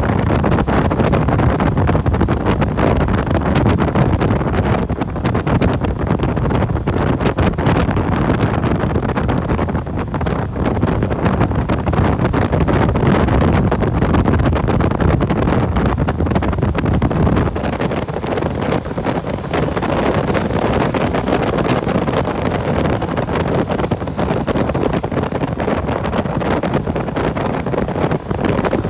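Wind buffeting the microphone of a moving motorcycle, over the bike's engine and road noise. The low rumble eases a little a bit past the middle.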